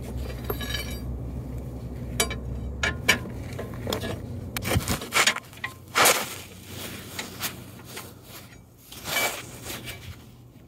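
Metal hand tools and car parts clinking and scraping: a scattered series of sharp clinks and knocks, the loudest about six seconds in, with a longer scrape about nine seconds in.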